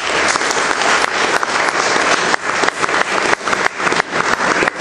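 Audience applauding, thinning out into scattered claps toward the end.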